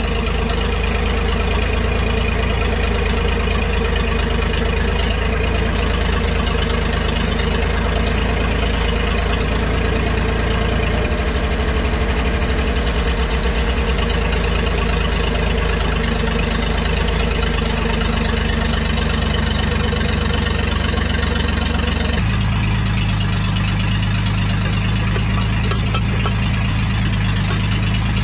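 An old, worn truck engine running steadily after a cold start; the owner says it needs a rebuild, having had no compression until oil was put in the cylinders. About three-quarters of the way through, its note changes to a lower, steadier hum.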